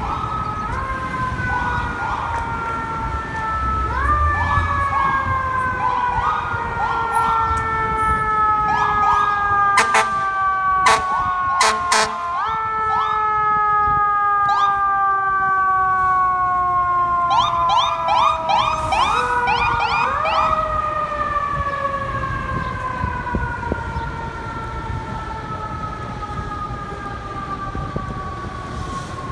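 FDNY fire engine's electronic siren wailing, its pitch sliding slowly down and jumping back up, broken three times by fast yelp passages, with a few short sharp blasts near the middle. It fades a little near the end, over a low rumble of city traffic.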